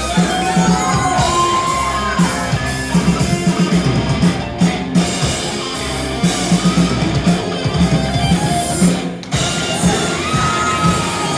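A rock band playing live: electric guitar and drums, with singing, heard in a large hall.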